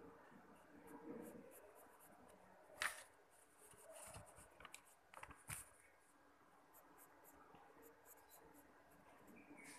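Faint pencil scratching on paper in short strokes, with a sharp click about three seconds in and a few more clicks and knocks soon after.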